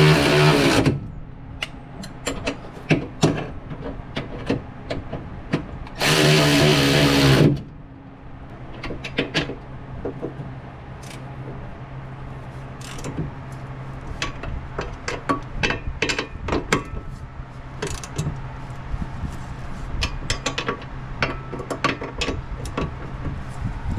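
A power tool runs in two bursts of about a second and a half, one ending just under a second in and another about six seconds in, while the truck's front strut rod bushing nuts are being tightened. In between and afterwards come many sharp clicks and taps of hand tools on metal.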